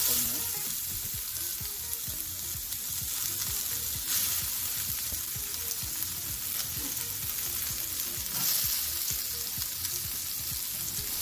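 Chopped onion sizzling in hot oil and whole spices in an aluminium pan. The sizzle starts suddenly as the onion hits the oil, then holds steady, swelling briefly about four seconds in and again about eight and a half seconds in. This is the start of frying the onion till light brown.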